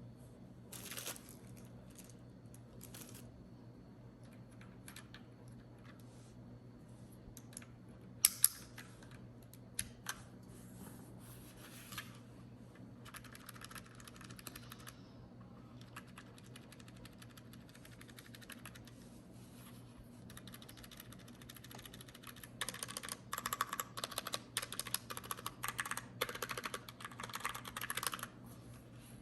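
Keystrokes on a Glorious GMMK TKL mechanical keyboard with Gateron brown switches: scattered single key presses, then a fast run of typing from about 22 seconds in.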